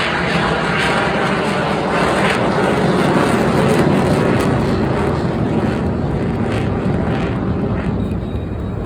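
Fixed-wing aircraft flying past, its engine noise swelling to a peak about three to four seconds in and then fading near the end.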